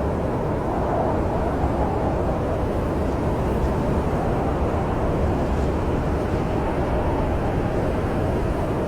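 Snowstorm wind blowing steadily as a dense low rumble, with a faint whistling tone in it from about two-thirds of the way through. Light crackles of a wood fire sit faintly above it.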